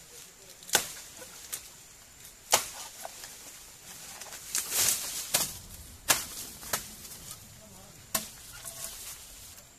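Khukuri blade chopping into bamboo: about eight sharp, irregularly spaced blows, with a short rush of noise about halfway through.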